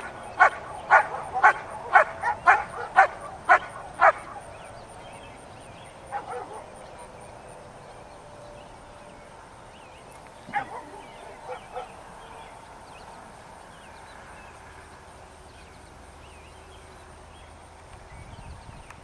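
German Shepherd barking in a quick, even series, about two barks a second, for the first four seconds and then stopping: the dog barking at the protection helper during Schutzhund bite work. A few fainter short sounds follow later.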